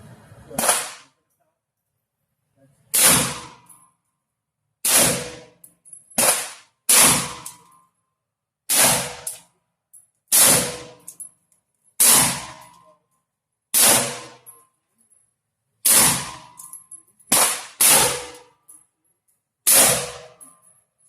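A double-barrel AR-15 rifle firing a slow string of about thirteen shots, one every one to two seconds, with two fired close together near the end; each shot is loud and sharp with a brief tail.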